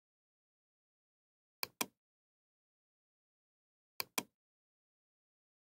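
Computer mouse button clicked twice, each click a sharp press-and-release pair, about one and a half seconds in and again about four seconds in.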